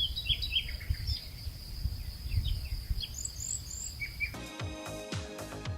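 Nature ambience recording: a steady high insect trill with birds chirping over a low rumble. About four seconds in, music with a beat cuts in abruptly.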